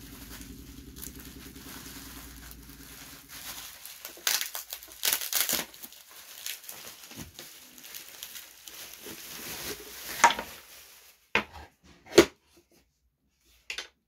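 Plastic bubble wrap crinkling and rustling as it is pulled off a boxed foldable laptop table, followed by a few sharp knocks as the table is handled.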